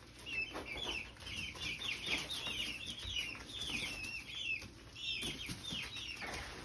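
A flock of four-week-old chicks peeping, many short high chirps overlapping without a break.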